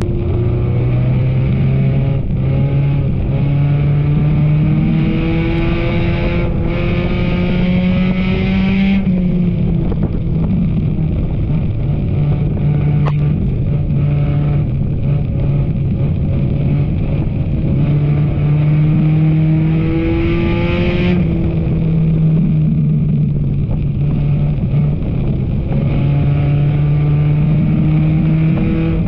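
Enduro stock car's engine running hard in a race. Its pitch climbs for several seconds and then drops sharply, twice, as it accelerates and lifts off the throttle lap after lap.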